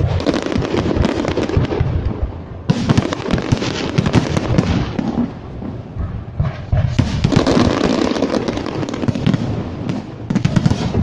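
Aerial firework shells bursting in quick succession, a dense barrage of bangs and crackle with a short lull a little past the middle.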